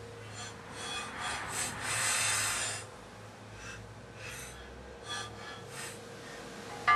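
Steel manifold pipe and flange scraping and rubbing against the vise as they are handled and lined up for welding, in several short scrapes with the longest about two seconds in, and a sharp click near the end. A steady low hum runs underneath.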